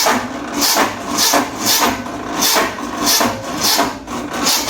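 Maruti 800's small petrol engine being cranked on the starter motor, a rhythmic churning at about two pulses a second, without catching; the cranking cuts off near the end.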